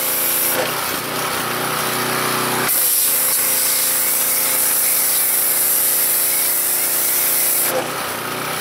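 Pressure washer running with a steady motor hum while the foam cannon sprays car-wash soap, a strong hiss. The hiss eases off about half a second in, comes back strongly a little under three seconds in, and eases again near the end.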